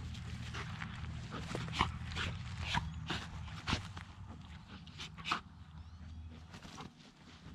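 Vizsla puppy and goldendoodle play-wrestling on grass: scuffling and short mouthing and biting sounds, with sharp clicks about two seconds in, near four seconds and a little after five seconds, over a low steady hum.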